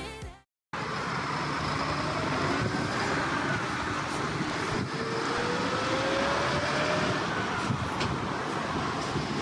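Road traffic noise, steady, with one vehicle's engine rising in pitch about halfway through.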